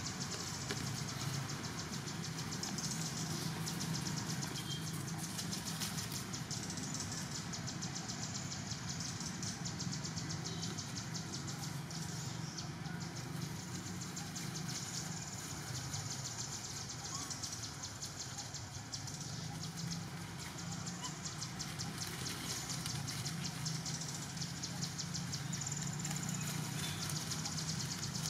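Steady outdoor background noise: a low, even hum with a high, rapidly pulsing buzz over it, with no clear animal call standing out.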